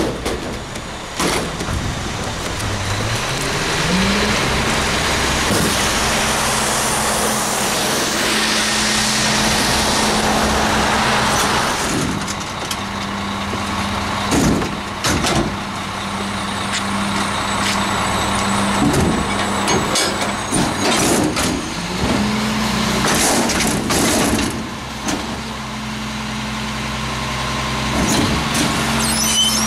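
Diesel engine of a CCC McNeilus rear-loader garbage truck revving up and holding high revs to drive the hydraulic container lift, rising about three seconds in and again about two-thirds of the way through after a short dip. Steel dumpster bangs and clanks as it is hooked on, lifted and tipped into the hopper.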